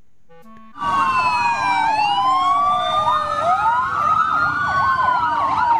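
Fire engine sirens, several at once, starting about a second in: slow falling and rising wails layered with a fast warbling yelp.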